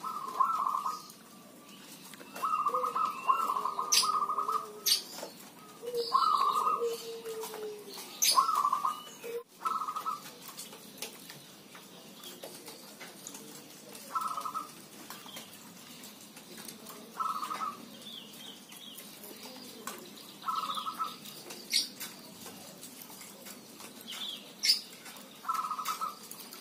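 Caged zebra doves (perkutut) cooing, with short bursts of rapid staccato coos repeated every few seconds. Faint high chirps of small birds come in between.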